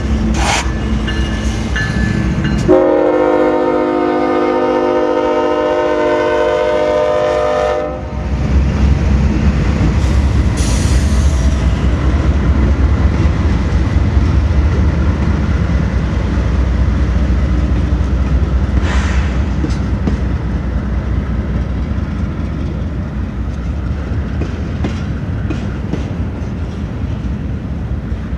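Freight locomotive's air horn sounding one long chord that steps down in pitch after about three seconds and stops after about eight seconds. Then the steady low rumble and clatter of double-stack intermodal well cars rolling past on the rails, with a few brief squeals.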